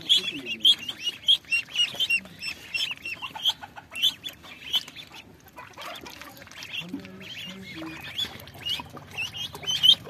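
A flock of ducklings peeping: many short, high-pitched calls, one after another and overlapping. They come a little more sparsely around the middle.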